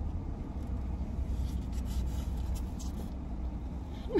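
Steady low hum of a car with its engine running, heard from inside the cabin, with faint rustling of fast-food packaging and chewing through the middle.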